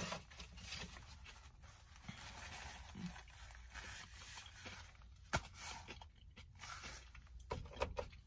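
Faint rustling and small clicks from eating and handling a paper napkin, over a steady low rumble, with a sharper click at the start and another about five seconds in.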